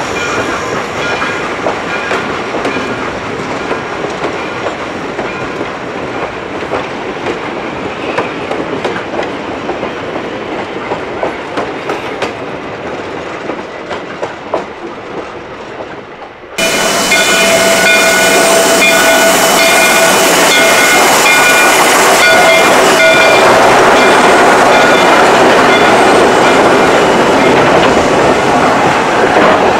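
Railroad coaches of a steam-hauled train rolling across a wooden trestle, their wheels clicking over the rail joints. About halfway through the sound jumps suddenly louder and closer, and a steady high metallic whine rides on the rolling noise.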